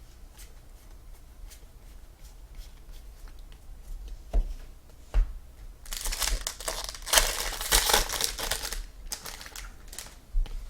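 A foil trading-card pack wrapper crinkling and tearing open, loudest for about three seconds past the middle, with scattered light clicks and taps of cards being handled before and after.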